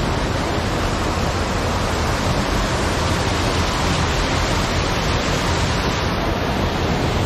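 River water pouring over a low concrete weir, a loud, steady rush of cascading water.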